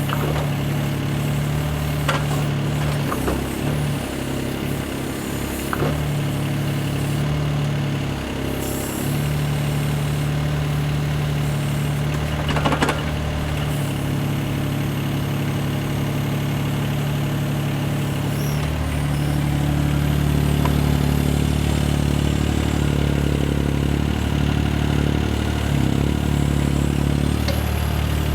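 Vehicle engine running steadily at idle, growing a little louder about two-thirds of the way through, with a few sharp knocks.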